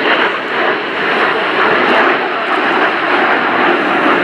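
Several BAE Hawk T1 jets, each with a single Rolls-Royce Turbomeca Adour turbofan, flying past in close formation: a loud, steady rushing jet noise.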